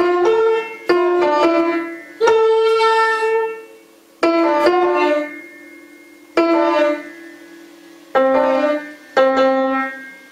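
Upright piano playing Solresol words as notes: short groups of one to three single notes, each left to ring and fade, with pauses between the groups.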